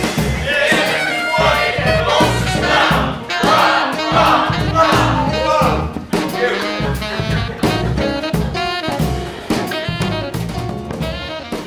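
Upbeat instrumental backing track with a steady drum beat, fading out near the end.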